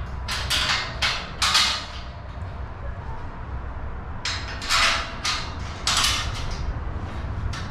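A bolt being tightened by hand with an Allen key and wrench on a bracket of a steel roof basket, heard as short harsh strokes of the tool. They come in two runs, one starting about half a second in and another about four seconds in.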